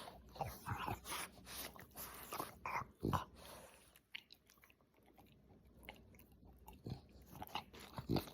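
A dog chewing, with irregular crunches and clicks, busiest in the first three seconds and sparser after.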